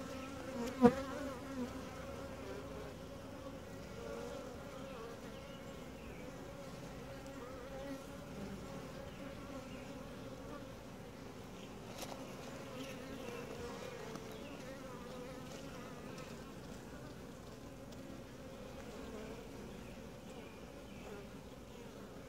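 Honey bees humming steadily on a brood frame lifted from the hive: the low, even drone of a calm colony. A single sharp knock about a second in, with a fainter click about halfway through.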